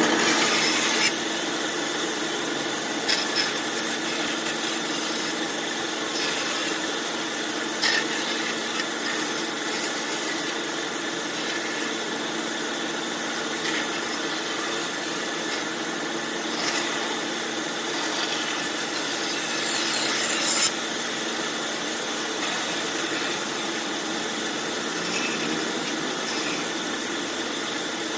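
Band saw running and cutting wood: a steady machine hum with the hiss of the blade through the timber, and a few sharp knocks.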